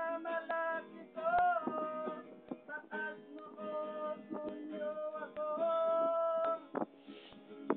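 Acoustic guitar strummed and picked to accompany a song, with a man's voice holding and bending sung notes over it.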